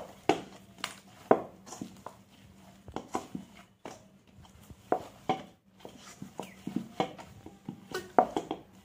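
Hands kneading and knocking back risen dough in a stainless steel bowl: irregular slaps and knocks of dough and hand against the metal bowl, about one a second, pressing the air out of the doubled dough.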